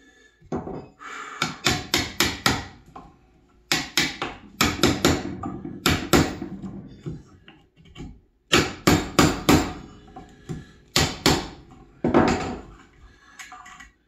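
Hammer striking a Stanley bench chisel to chop the waste out of a joint in pine. The blows come in bursts of three to five sharp knocks, about three a second, with short pauses between bursts.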